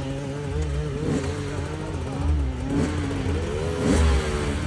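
Enduro motorcycle engine revving up and down under the throttle on a steep climb, with a few quick, sharp revs, the loudest near the end.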